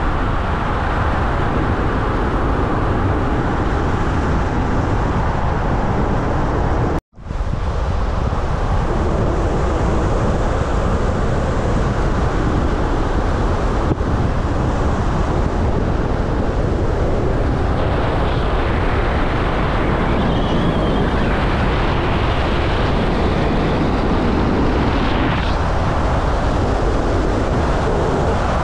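Steady road noise of a moving car: tyre roar and wind noise. It cuts out for a split second about seven seconds in.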